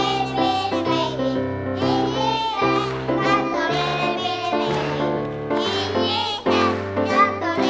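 A group of young children singing a song together over backing music.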